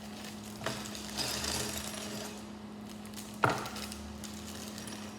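Scissors and a plastic LEGO parts bag being handled: a click, about a second of plastic crinkling, then one sharp knock on a hard surface about three and a half seconds in. A steady low hum runs underneath.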